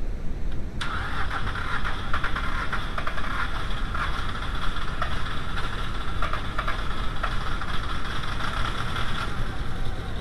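A VW 2.0L AZG four-cylinder engine being cranked on the starter for about eight seconds, starting suddenly about a second in and cutting off near the end, in a start attempt on an engine that cranks but won't start.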